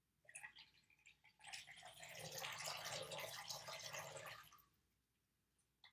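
Borax solution poured in a thin stream from a measuring cup into a bowl of watery glue mixture: a few light drips at first, then a faint, steady pouring splash for about three seconds that stops shortly before the end.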